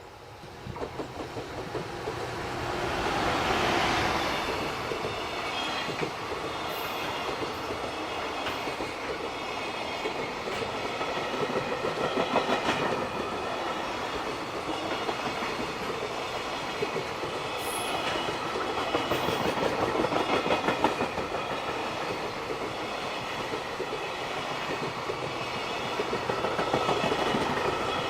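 Freight train passing: the locomotive comes by in the first few seconds, then a long, steady run of wagons with their wheels clattering over the rail joints.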